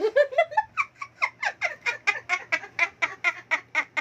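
A person laughing hard and steadily: a long run of quick 'ha' bursts, about five a second.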